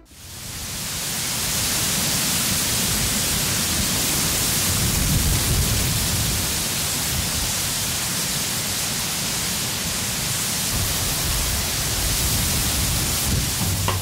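Steady rushing of wind through a bamboo forest, the leaves rustling, with wind rumbling on the microphone. It fades in over the first second or so.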